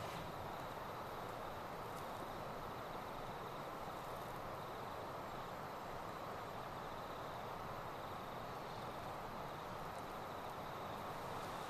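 Punctured lithium-ion cell phone battery hissing steadily as it vents hot smoke after being shorted and cut with a knife blade.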